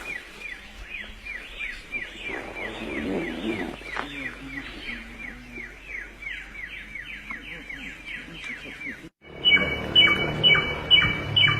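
Samyong songbird singing a fast run of repeated chirps, each sliding downward, about three a second. About nine seconds in there is a brief break, and after it a louder, sharper repeated call about twice a second.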